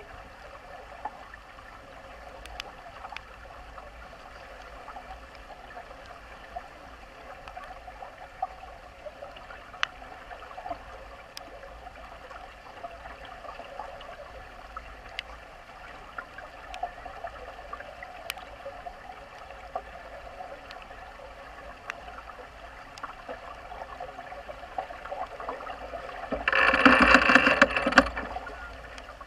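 Water rushing steadily along the hull of a heeled Najad sailing yacht under sail in a rough sea, with scattered small ticks. Near the end a much louder rush of water lasts about two seconds.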